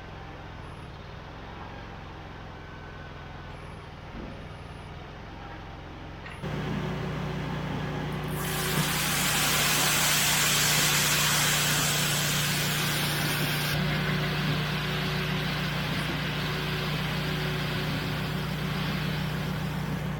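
Farm machinery engine running steadily, stepping up louder about six seconds in. A loud hiss joins it about eight seconds in and drops away about five seconds later.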